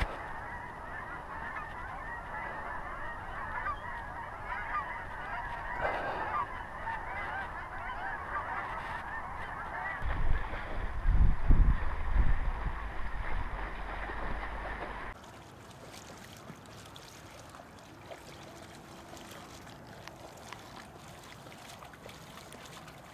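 A large flock of waterfowl calling, many voices at once in a dense continuous chatter. A low rumble comes in about ten seconds in, and about fifteen seconds in everything cuts off to a quiet background.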